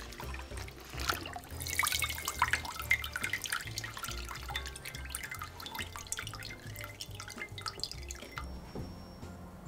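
Water dripping and splashing with many small sharp clicks over background music with a repeating bass line.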